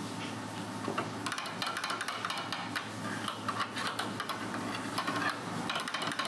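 A utensil working in a stainless-steel compartment of miso broth: rapid, irregular clicks and metal clinks that start about a second in.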